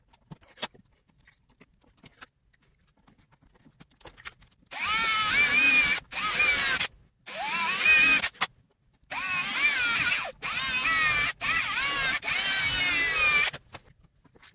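Electric drill running in a series of short bursts, its motor whine wavering up and down, drilling down alongside a seized bolt in a stripped shroud nut on a plastic dirt bike fuel tank. The bursts start about five seconds in and stop shortly before the end.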